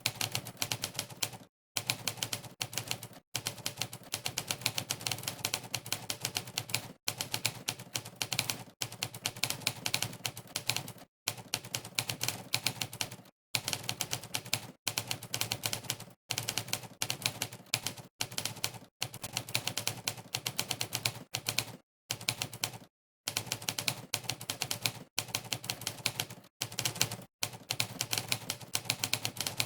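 Typewriter keystroke sound effect from the Monkeytype typing site, triggered by each key press. It clicks in quick succession during fast typing, with brief silent pauses every second or two.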